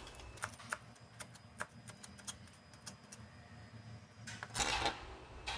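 Chef's knife chopping fresh coriander on a plastic cutting board: light, irregular taps, two or three a second, then a longer scrape about four and a half seconds in as the chopped leaves are gathered with the blade.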